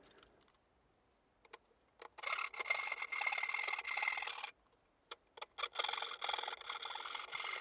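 A tool cutting or rasping into the plywood jig in two spells of about two seconds each, with a few clicks between them.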